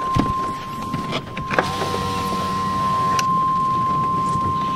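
A steady high electronic tone runs and cuts off near the end, over a constant low buzz from cell-phone interference picked up by the camcorder's microphone. From about a second and a half to three seconds in, a car's power window motor whines.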